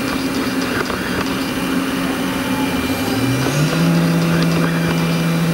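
Haas VF-2 CNC vertical mill running with flood coolant spraying inside the enclosure. About three seconds in, its spindle tone rises quickly in pitch, then holds steady at a speed of around 10,000 rpm.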